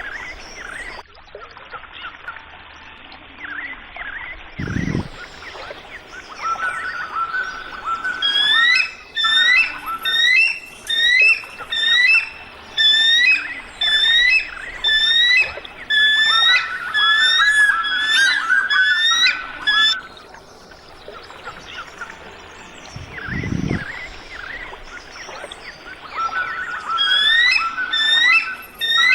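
A bird calling a fast series of loud, high, whistled piping notes, a little over one a second. The calls start about a quarter of the way in, break off about two-thirds in and start again near the end, over fainter chirping from other birds. Two short dull low thumps come in the quieter stretches.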